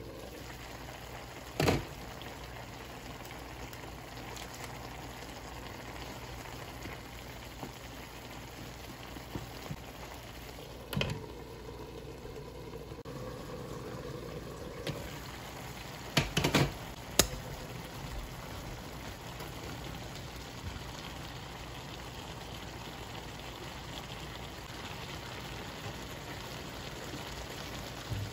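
Squash simmering in liquid in a covered pan: a steady bubbling hiss, broken by a sharp clink about two seconds in as the glass lid is set down, and a few more clinks past the middle.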